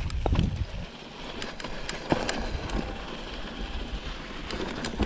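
Mountain bike rolling down a dry, rocky dirt trail: tyres crunching over gravel and stones, with a scattering of sharp clicks and knocks from the bike and its handlebar camera mount. There is low wind rumble on the microphone, heaviest near the start.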